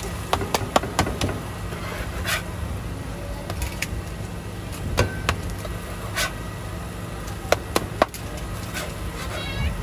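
Metal spatulas clicking and scraping on a large iron griddle as okonomiyaki are flipped and pressed, a sharp tap every second or so at irregular intervals, over a steady low hum.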